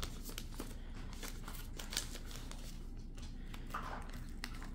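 Faint rustling and light clicks of a clear plastic zip bag being handled as small diamond-painting tools, a wax tub among them, are put into it.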